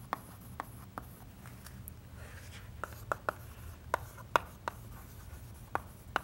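Chalk writing on a chalkboard: an irregular run of sharp taps and light scratches as the letters are written.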